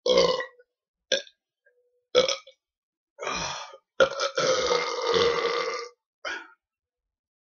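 A man belching from gulped carbonated soda: a string of short burps, then one long drawn-out burp lasting nearly two seconds about four seconds in, and a last short one near the end.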